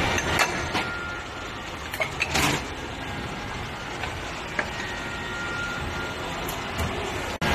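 Injection moulding machine running a cycle on a four-cavity oil-cap mould: a steady machine hum and whine, with sharp clicks and a short clatter about two seconds in as the mould opens and closes.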